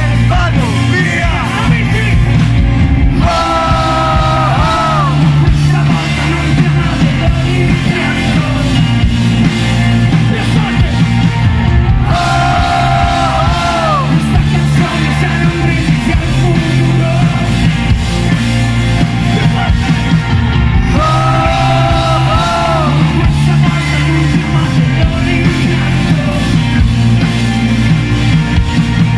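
Italian indie rock band playing loud and live: electric guitars, bass and drums under a sung, partly shouted vocal. A held vocal line that bends down at its end comes round three times.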